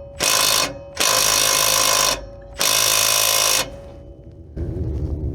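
Impact wrench hammering on a tight bolt, in three bursts of about a second each with short pauses, as it works to break the bolt loose. A steady motor whine runs under the hammering.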